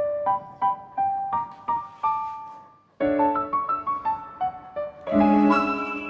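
Background solo piano music: a melody of single notes that fades out around three seconds in, then starts again abruptly, with a loud full chord near the end.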